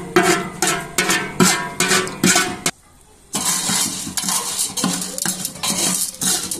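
Metal spoon stirring popcorn kernels with oil and salt in a metal pot: repeated clinks and scraping, broken by a short silent gap about three seconds in.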